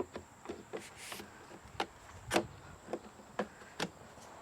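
Irregular sharp clicks and knocks, about a dozen, with a brief scraping rustle about a second in, from parts of a large plastic skeleton decoration being pulled at and handled.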